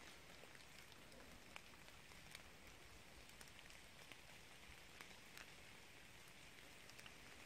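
Faint rain in woodland: scattered single drops tapping on leaves over a soft, even hiss.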